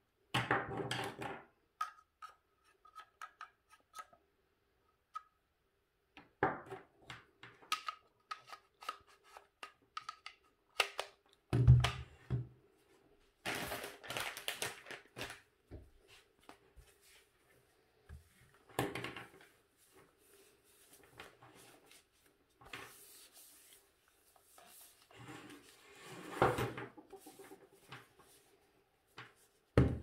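Handling noises from a plastic hair dryer on a wooden table: scattered clicks and knocks, one heavy thump about twelve seconds in, and stretches of cloth rubbing over the housing and cord.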